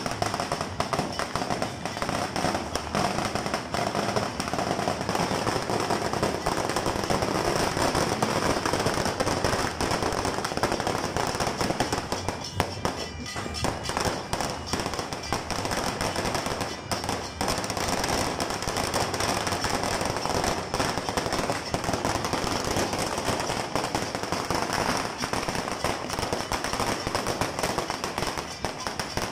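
Many fireworks and firecrackers going off at once: a dense, unbroken crackle of rapid pops and bangs.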